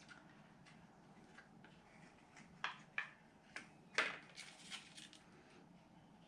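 Faint light clicks and taps, about half a dozen close together in the middle, over a low steady hum: small parts being handled.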